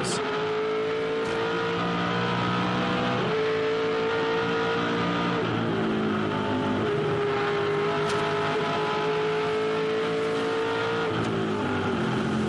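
Ford V8 Supercar's 5-litre V8 engine heard from inside the cockpit, running at full throttle near 7,000 rpm down a straight. The note climbs slowly and changes in steps as it shifts from fifth into sixth gear. Wind and road noise come through the cabin.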